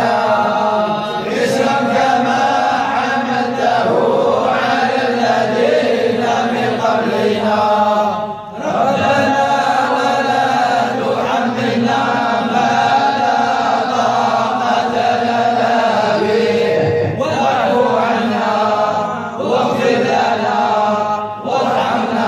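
A group of men chanting an Islamic devotional chant together, with voices held on long notes and short breaks for breath about eight and seventeen seconds in.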